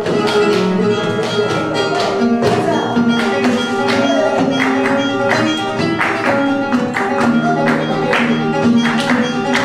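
Flamenco guitar playing bulerías por soleá, accompanied by rhythmic handclaps (palmas) from several people.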